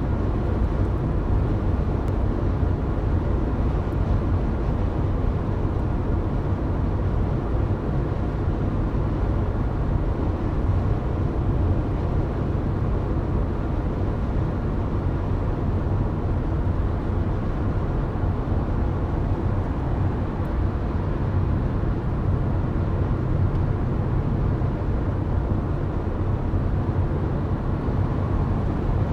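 Steady road and engine noise of a car cruising at highway speed, heard inside the cabin, a low even rumble with no changes.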